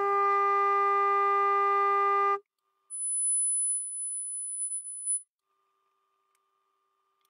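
Steady sine test tone of about 400 Hz played through the Lepy LP-2051 Tripath amplifier into a speaker, with a long stack of overtones, the amplifier under distortion testing; it cuts off suddenly about two and a half seconds in. Then a thin, high-pitched tone sounds for about two seconds.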